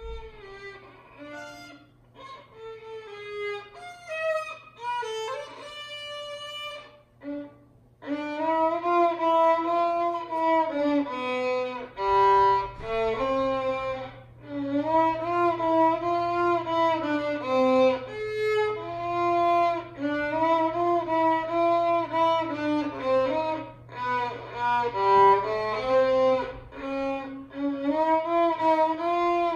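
Solo violin playing a slow melody with vibrato on the held notes, soft and halting at first, then louder and more continuous from about eight seconds in. A faint steady low hum runs underneath.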